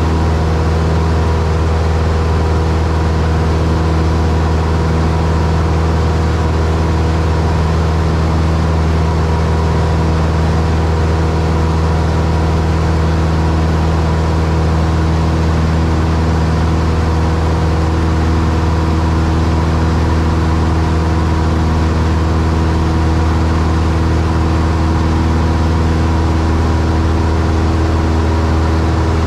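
Cessna 172's piston engine and propeller droning steadily in cruise flight, heard inside the cabin, with no change in pitch or level.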